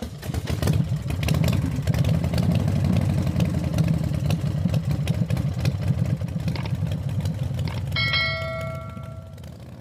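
Pickup truck engine idling roughly, its pulses uneven: the shake of a P0300 random misfire. About eight seconds in, a bell-like chime rings for about a second and a half, and the engine sound fades out over the last two seconds.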